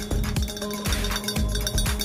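Background music with a steady, regular beat.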